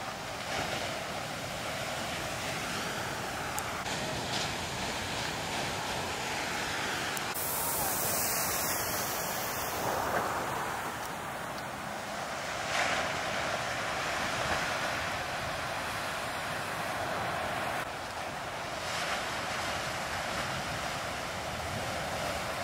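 Heavy ocean surf breaking in a shorebreak: a continuous rushing wash of water that swells in loudness several times as waves crash, with wind on the microphone.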